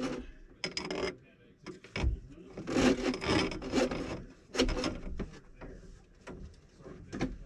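Wet drain-cleaning cable being pulled and handled under a sink, rubbing and scraping against the cabinet and pipes in irregular bursts.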